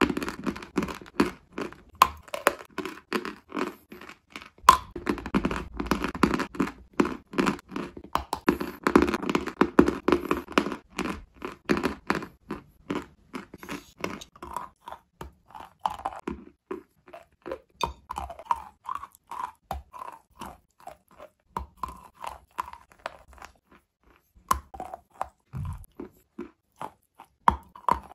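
A person biting off and chewing chunks of white chalk close to the microphone, making dry crunching. The crunching is dense through the first half, then turns to sparser, even chewing strokes about two to three a second.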